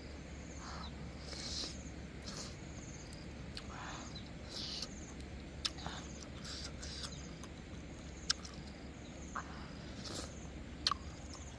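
Close-miked eating sounds: soft chewing and wet mouth and lip clicks, with a few sharp clicks, as roasted fish is eaten from a wooden spoon. Insects chirr faintly and steadily in the background.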